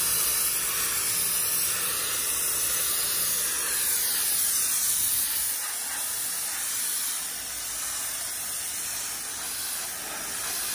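Pressure washer jet spraying steadily onto wire smoker grill grates, rinsing off the degreaser; a steady hiss that gets a little quieter from about halfway through.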